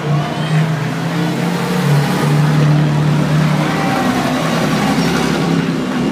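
Vintage open-top racing cars driving slowly past one after another, their engines running with a steady low note.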